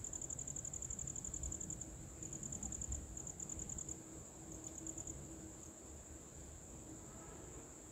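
High-pitched insect trilling: a rapid pulsing of about ten pulses a second in short runs for the first five seconds, then a steady buzz.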